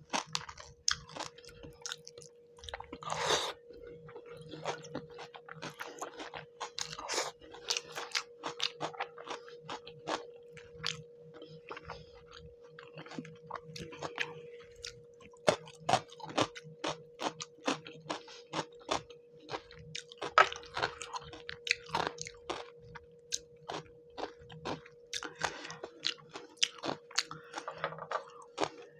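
Close-miked chewing of a mouthful of fish curry and rice: many quick wet mouth clicks and small crunches, with a louder crunch about three seconds in. A faint steady hum runs underneath.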